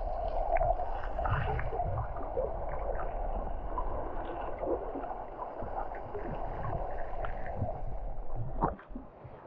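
Muffled sea water sloshing and gurgling around a camera at or just under the surface while swimming, with a heavy low rumble. It drops away sharply near the end.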